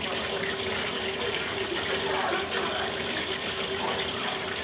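Restaurant kitchen noise: a steady rushing hiss, of running water or of frying, over a steady hum.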